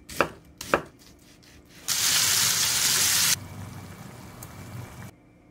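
A spice can tapped over a bowl to sprinkle seasoning: two sharp knocks about half a second apart, then a loud steady hiss of about a second and a half, followed by a fainter hiss that cuts off suddenly.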